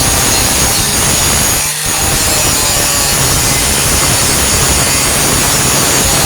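Warrior 4-1/2-inch angle grinder with a Type 27 grinding disc grinding down welded steel on a truck tailgate patch: loud, continuous grinding with a steady high whine, dipping briefly about two seconds in.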